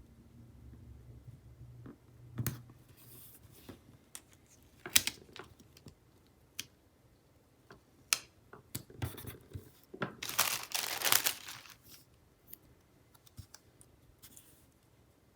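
Paper stickers being peeled from a sticker sheet and pressed onto a planner page: scattered light taps and paper rustles, with a longer crinkling peel about ten seconds in.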